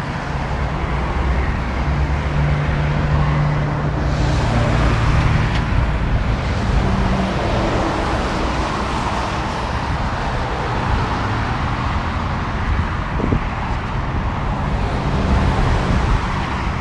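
Steady road traffic: cars and heavier vehicles passing, with engine hum and tyre noise, a deeper engine drone strongest a few seconds in.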